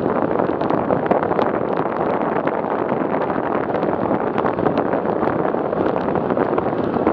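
Steady rush of wind over the microphone of a camera on a road bicycle moving at about 40 km/h, with scattered faint ticks.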